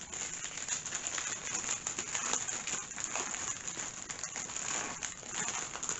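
Plastic packaging rustling and crinkling, with many small ticks, as a diamond painting kit is handled and packed back into its plastic bag.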